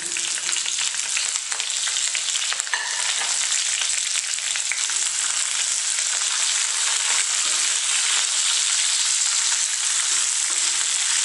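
Slit green chillies frying in hot oil in a kadhai, a steady sizzling hiss that sets in as they are tipped into the pan. A wooden spatula stirs them through the oil.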